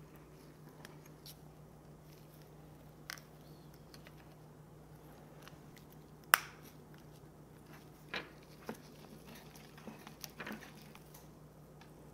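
Scattered small clicks and taps from a Sony ZV-1 camera and its screen parts being handled during a screen repair, with one sharp click about six seconds in, over a faint steady hum.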